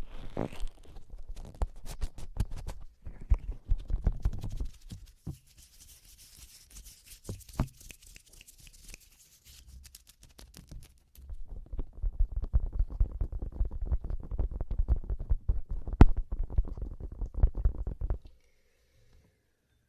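Close, wet mouth sounds on a binaural microphone's ear: nibbling and kissing, made of dense crackly clicks and rubbing, with a stretch of soft breathy hiss in the middle. The sounds stop suddenly a couple of seconds before the end.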